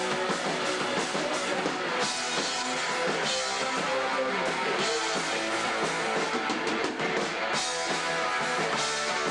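Hardcore punk band playing live: electric guitars and drum kit going steadily, with little bass in the sound.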